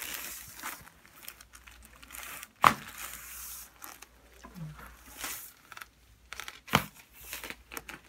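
Two sharp pops from chiropractic neck adjustments, one about two and a half seconds in and the other near seven seconds, with soft rustling between them. The chiropractor calls the neck locked up: the pops are the restricted joints releasing.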